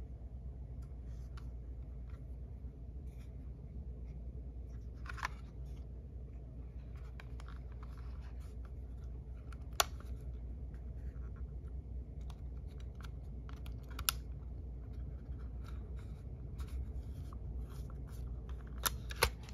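Hands handling a Sony WM-EX621 cassette Walkman: scattered small clicks, taps and rubbing on its casing and controls, with a few sharper clicks, the loudest about ten seconds in and a quick pair near the end.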